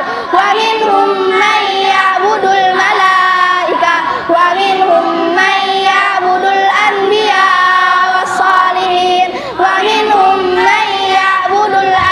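A group of children chanting an Arabic religious text in unison in a sing-song recitation, phrase after phrase with brief breaths between.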